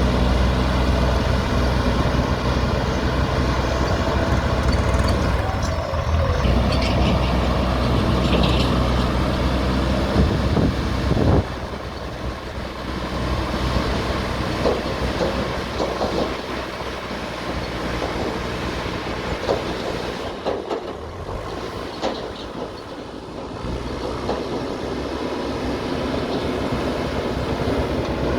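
JCB backhoe loader's diesel engine running under load, easing to a lower, quieter note a little over a third of the way in. Scattered clanks and knocks from the working machine sound throughout.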